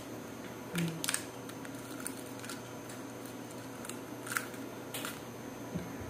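Sparse light clicks and taps of eggshell and a metal spoon as a raw egg is broken open over a plastic bowl: a pair of sharper clicks about a second in, then a few fainter ticks.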